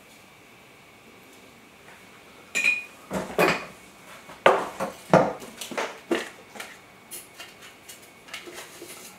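Metal kitchen utensils clinking and clattering against dishware: a quiet start, then a run of sharp clinks and knocks from a few seconds in. The first clink rings briefly and the loudest knocks come in the middle, thinning to lighter clicks near the end.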